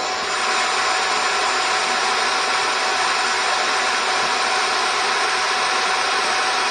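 Table saw running steadily at full speed, an even whir with a constant tone and no change in pitch.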